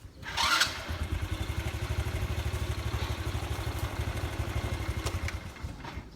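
A short loud rush about half a second in, then a small engine running with a rapid, even beat for about five seconds, fading away near the end.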